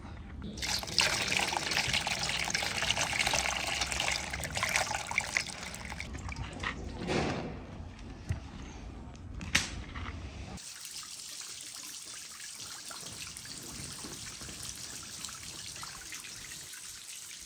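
A large watermelon is handled in a steel basin: loud rubbing with a few sharp knocks for about ten seconds. After an abrupt change, water pours steadily from a pipe and splashes into a small pond.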